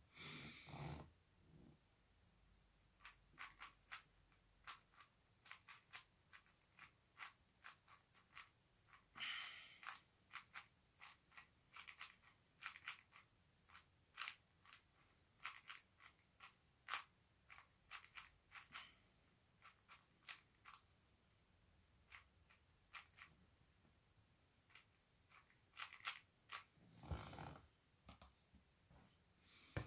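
Plastic puzzle cube being turned by hand in quick, irregular clicks of its layers, as when scrambling, with a soft thump near the end as the cube is set down.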